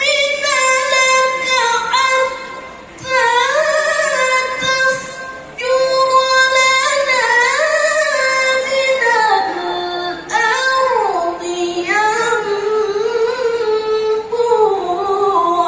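A woman reciting the Quran in the melodic tilawah style (qiraah), a single voice holding long ornamented notes that wind up and down in pitch, with brief breaks for breath between phrases. The melody settles lower about two-thirds of the way through.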